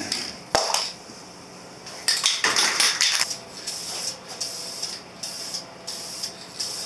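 Aerosol spray-paint can hissing as blue paint is sprayed in light coats: one longer spray about two seconds in, then a string of short puffs. A sharp click about half a second in.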